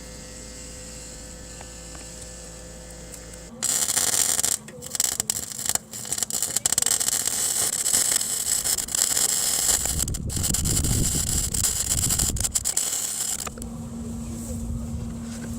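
Eastwood MIG 135 welder arc crackling against rusty exhaust steel. It starts about three and a half seconds in, sputters in short bursts, then runs steadily for several seconds before stopping near the end. A steady low hum follows.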